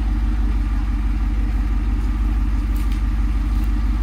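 Jeep Wrangler Rubicon 392's 6.4-litre HEMI V8 idling steadily, with a low, even, rapid throb.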